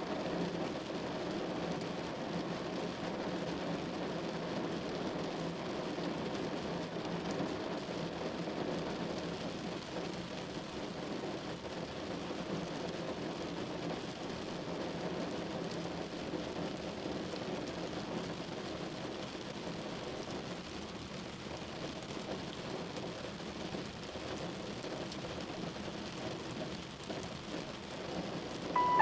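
Steady rain falling, an even patter without any single loud event.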